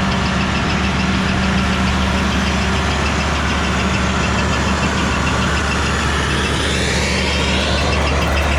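Heavy diesel machinery running steadily: a Komatsu excavator loading soil into the hopper of a Powerscreen mobile screener with its engine going. A whine rises in pitch over the last two seconds or so.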